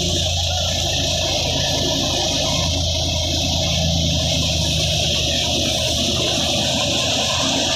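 Tractor-driven grain thresher running steadily while sheaves are fed into it. It makes a continuous rushing whoosh over the low, even hum of the tractor engine.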